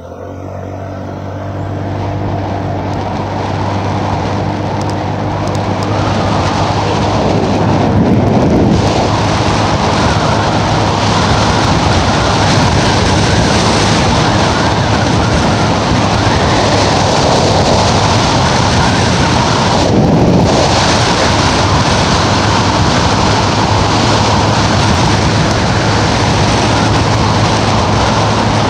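Small gasoline engine running steadily as the vehicle is ridden along, getting louder over the first several seconds, with wind rushing over the microphone.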